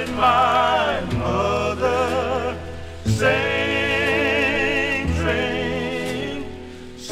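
Male gospel vocal quartet singing in close harmony: held chords with vibrato over a low bass note, each chord starting anew about every two seconds.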